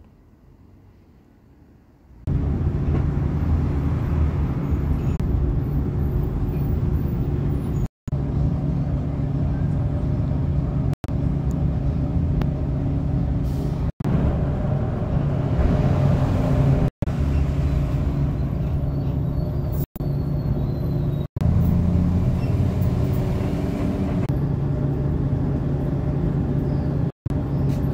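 Steady low running hum and rumble of a public-transport vehicle, heard from inside its cabin. It starts after about two seconds of quiet and breaks off abruptly every few seconds before going on.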